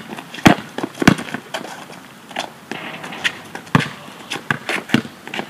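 Basketball bouncing on a hard court: a few sharp thuds at uneven spacing, with shoes scuffing and stepping between them.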